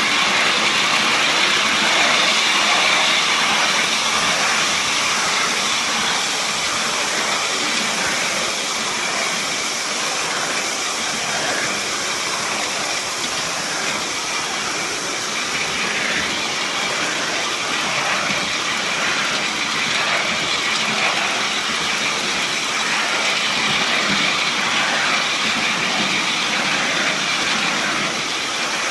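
3½-inch gauge live-steam model locomotive of the Heilan Lassie design, a Gresley Pacific, running along its track with steady chuffing and a hiss of steam.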